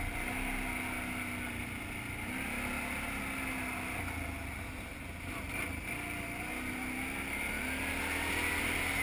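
Quad ATV engine running under throttle across sand, its pitch rising and falling several times as the throttle is opened and eased off.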